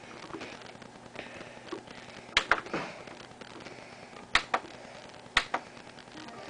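Several sharp, short knocks, mostly in close pairs about a second or two apart, over a faint steady room hiss.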